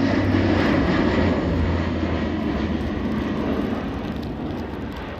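Airbus A400M's four turboprop engines and propellers droning during a fast low pass, dropping slightly in pitch near the start and fading steadily as the aircraft moves away.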